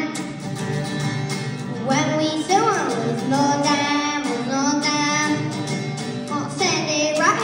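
A boy singing a song into a microphone while strumming an acoustic guitar, played live through a PA.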